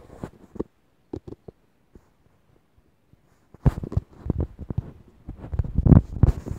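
Handling noise from a phone being moved about: irregular knocks and rubbing against the device. They fall quiet from about two seconds in and return about three and a half seconds in, thicker and louder, loudest near the end.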